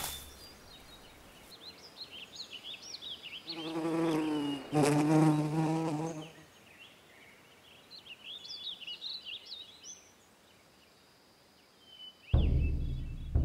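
Cartoon nature ambience: small birds chirping in quick high rising and falling notes, with an insect buzzing steadily for about three seconds in the middle.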